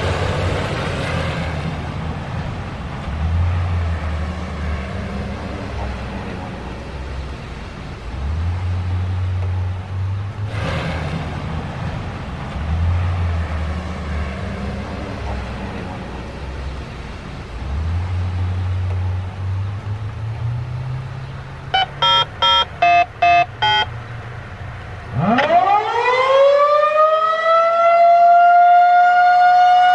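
A low rumble for about twenty seconds, then a quick run of about six short electronic beeps. About 25 seconds in, a Federal Signal 2001-130 electromechanical siren winds up, its pitch rising steeply and then holding as one loud, steady tone: the start of a short-alert test blast.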